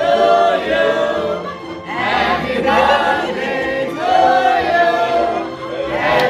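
A group of men and women singing together in unison, in phrases about two seconds long with short breaths between.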